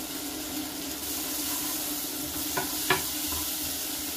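Sliced onions sizzling as they fry and caramelise in oil and butter in a pan, stirred with a wooden spoon, over a steady hum. A little under three seconds in come two sharp knocks, the second louder.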